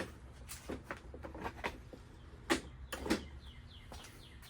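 Light clicks and clunks of a Toro 22-inch Recycler mower's blade-control bail and new cable being worked by hand to test the blade clutch, with the two loudest knocks a little past halfway. A bird chirps in quick falling notes near the end.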